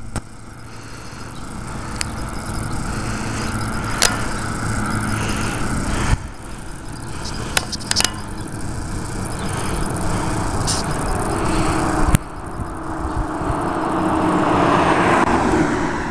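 A motor vehicle's engine running out of sight and growing louder, with a few sharp clicks. Near the end a car passes close by, its sound swelling and then fading.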